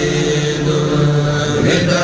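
Chanting of an Arabic devotional poem, a Mouride khassida, in long held notes with a slide in pitch near the end.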